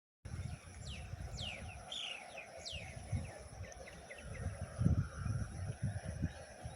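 Birds chirping outdoors: several quick downward-sweeping calls in the first three seconds, then shorter, fainter chirps. Underneath is an uneven low rumble that swells about five seconds in.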